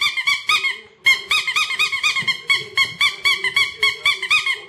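Bicycle bulb horn squeezed over and over, a quick run of short squeaky honks, about four a second, each rising and falling in pitch, with a brief pause about a second in.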